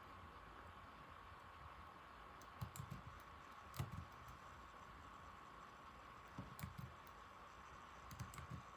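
Keys on an old laptop keyboard being typed in short runs of quick clicks: a few presses about two and a half seconds in, one sharper press a second later, then two more short runs. A faint steady high hum sits underneath.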